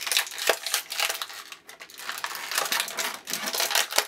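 Clear plastic wrapping crinkling as hands peel it off a small toy figure: a dense run of crackles with a brief lull about a second and a half in.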